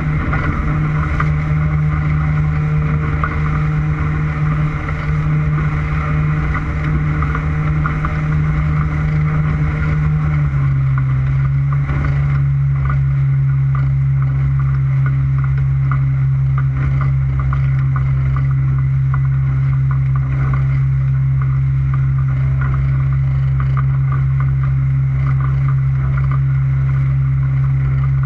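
Motorboat engine running at a steady speed. About ten seconds in, its note drops to a lower steady pitch as it is throttled back.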